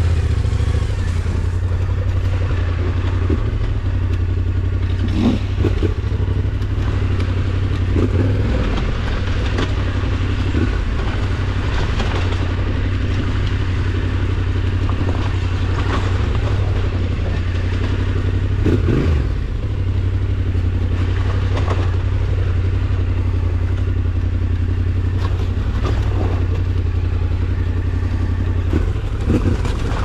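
Yamaha Ténéré 700's parallel-twin engine running steadily at low revs while the bike is ridden slowly off-road. It rises briefly in revs a few times, the most clearly about two-thirds of the way through, with scattered knocks and clatter from the bike over rough ground.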